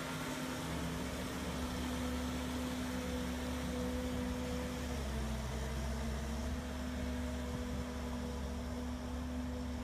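Engine of a Hydratrek tracked amphibious vehicle running steadily as it drives through shallow water, with a steady low drone over a hiss. Its pitch dips about halfway through and rises again a second or so later.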